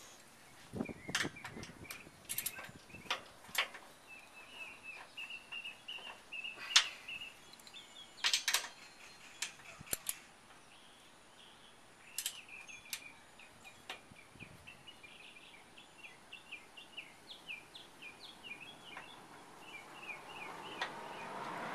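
Hand tools at work on a truck's side-step bracket bolts: irregular sharp clicks and clinks, the loudest about seven seconds in, thinning out after about fourteen seconds. Birds chirp in quick runs in the background.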